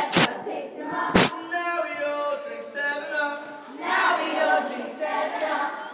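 A group of children singing together, with two loud sharp cracks about a second apart near the start.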